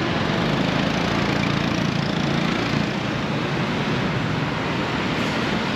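A small engine running steadily under a constant noisy background, its low hum plainest in the first half.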